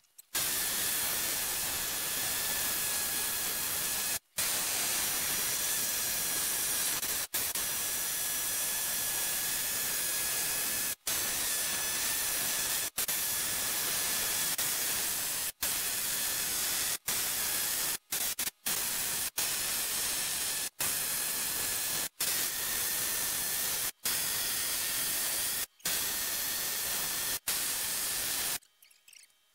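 Pneumatic air hammer chattering against the cast-iron ram of a Bridgeport milling machine, chipping off the old paint. It runs loud in long runs, let off for a split second more than a dozen times, and stops about a second before the end.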